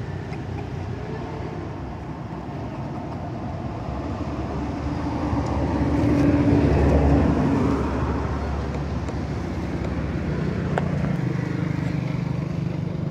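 A motor vehicle passing on the road: engine and tyre noise grows louder to a peak about six to seven seconds in, then fades, leaving a lower engine hum.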